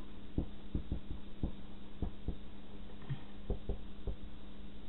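Marker writing on a small handheld whiteboard: the strokes come through as soft, low knocks, a few a second, over a steady low hum.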